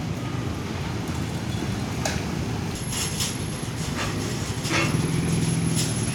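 Mitsubishi 6 hp petrol engine of a walk-behind concrete/asphalt cutter running steadily, with a few light clicks and a faint high whine from about three seconds in.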